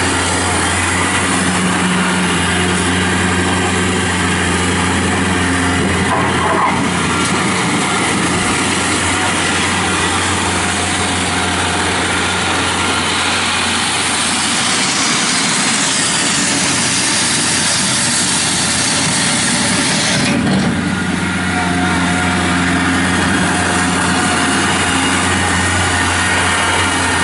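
Kubota B2910 compact tractor's three-cylinder diesel engine running steadily as the tractor drives. It grows fainter for a few seconds past the middle, then comes back strong.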